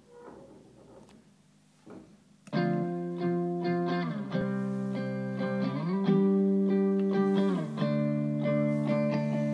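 Electric guitar loop played back from a Boss RC-30 Loop Station: after a couple of faint clicks, sustained chords start about two and a half seconds in and change every second or two, sliding in pitch between some of them.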